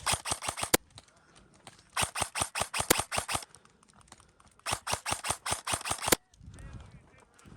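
Airsoft gun firing three quick strings of shots, about seven sharp cracks a second, with short pauses between the strings.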